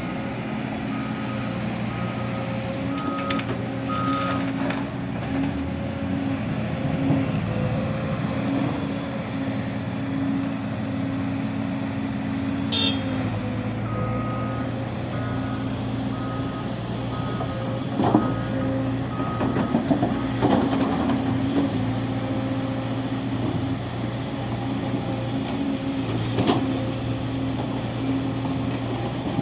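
Heavy diesel construction vehicle running steadily while its reversing alarm beeps in two spells, at the start and again about halfway. A few sharp knocks stand out in the second half.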